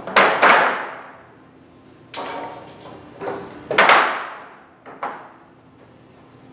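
A series of loud bangs and slams made as a noise distraction, about six of them, the loudest right at the start and about four seconds in. Each rings out in the echo of a large, hard-walled store hall.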